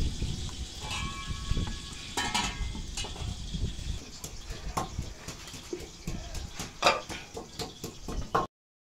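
A ladle knocking, clinking and scraping against clay pots while custard is served, in many short, irregular strokes. It cuts off suddenly near the end.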